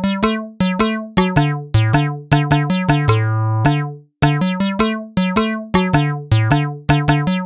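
Background music: a bouncy melody of short, quickly fading keyboard notes, with one longer held note about three seconds in and a brief break about a second later. It cuts off abruptly at the very end.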